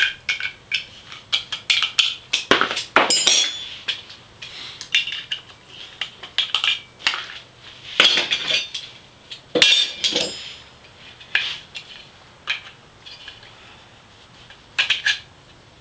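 Irregular metallic clicks, clinks and scrapes as a ball-bearing drawer slide is taken apart with pliers, metal parts knocking together, a few strikes ringing briefly.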